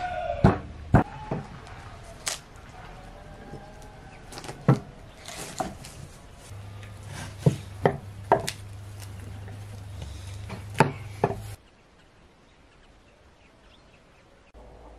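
Knife chopping raw goose on a wooden cutting board: about ten sharp, irregular knocks spread over some eleven seconds, then the chopping stops.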